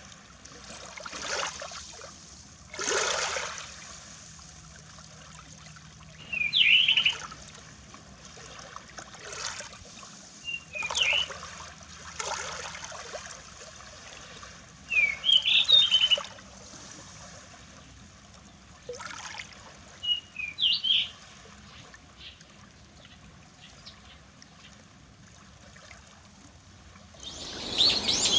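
Small waves lapping at the sea shore in soft washes every few seconds. Short groups of quick, high bird chirps come about four times. Near the end a louder, busier burst of many bird calls begins.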